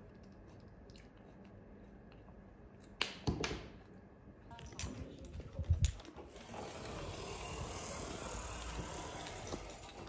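Quiet room with small handling clicks, a sharp click about three seconds in, and a few more clicks and low thumps a couple of seconds later. From about six and a half seconds a steady hiss sets in.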